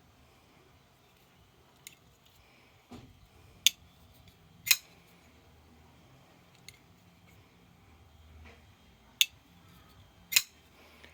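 Sharp metallic clicks from a titanium knife being handled: four loud clicks in two pairs, each pair about a second apart, with a few fainter clicks between them.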